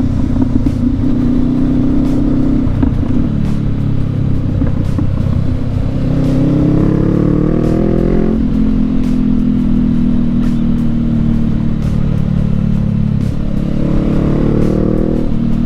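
Motorcycle engine running under way, revving up through a gear twice, with the pitch dropping sharply at each upshift, about halfway through and again near the end.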